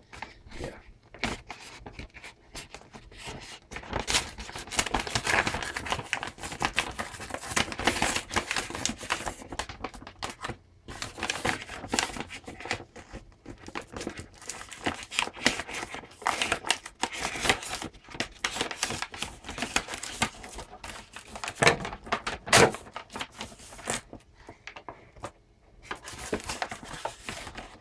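A yellow paper mailing envelope being torn open and crinkled by hand: irregular rustling and ripping of paper, with a couple of sharper, louder rips about three quarters of the way through.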